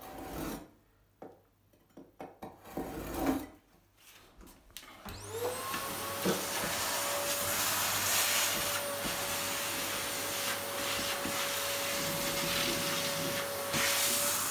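Short scratchy scraping in the gaps between wooden floorboards. About five seconds in a vacuum cleaner starts up: its motor whine rises and settles at a steady pitch, and its hose sucks dust and debris out of the floorboard joints.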